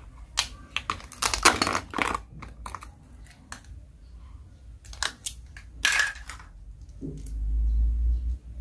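Velcro joins of plastic toy fruit being pulled apart: scratchy ripping of the hook-and-loop fastener, one long rip about a second in and another near six seconds, with light plastic clicks between. A low dull rumble near the end.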